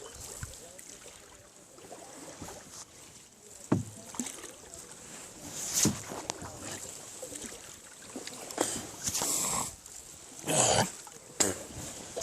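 Oars dipping and splashing as a small raft is rowed, with separate strokes every second or two over a low background of water.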